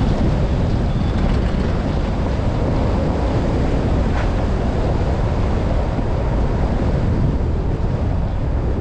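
Steady wind buffeting on the microphone of a camera on a moving car, over the low rumble of tyres on a rough, patched road.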